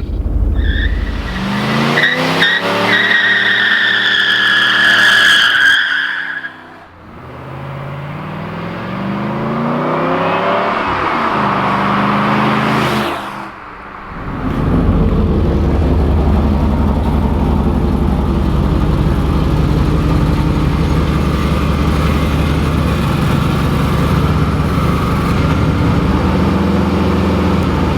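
V8 car accelerating hard with its tires squealing, the engine pitch climbing over the first few seconds. It climbs again through a second rise, then holds a steady, loud high-rev note for the rest.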